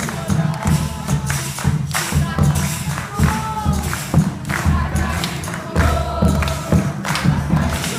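Live folk music: hand drums and tambourine keep a steady beat under a group of voices singing.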